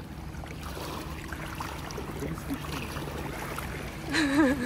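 Sea water sloshing against shoreline rocks over a steady low rumble. About four seconds in comes a short exclamation from a person, its pitch wavering.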